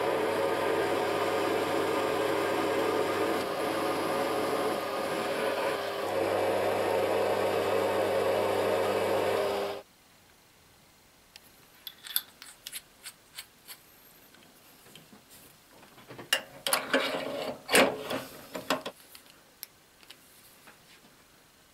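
Small metal lathe running and turning a metal shaft, a steady motor hum under the noise of the cut; it cuts off suddenly about ten seconds in. After that come scattered light metal clicks and knocks as the parts are handled.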